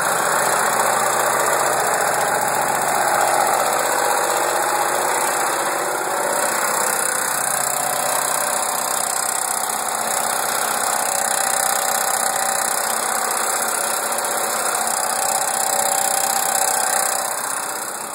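1991 Mitsubishi 3000GT's 3.0-litre V6 running steadily with a horrible mechanical noise, caused by a failing hydraulic timing belt tensioner.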